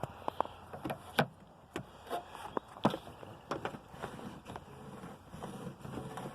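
Irregular light clicks and knocks of hands handling parts, with a faint low hum underneath.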